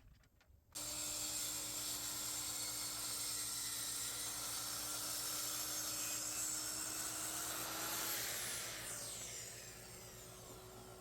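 Electric circular saw switched on about a second in and running steadily, then winding down from about eight seconds with a falling whine as the blade coasts to a stop.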